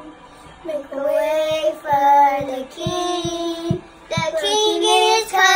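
Young boys singing, in phrases of held notes broken by short pauses, with a few soft low thumps underneath.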